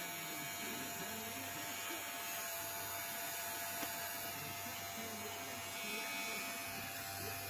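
Electric hair clipper running with a steady buzz, with faint muffled voices underneath.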